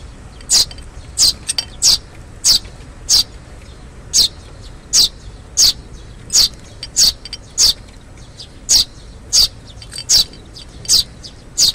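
Eurasian tree sparrows chirping: short, high chirps, each sliding down in pitch, repeated steadily at about three every two seconds.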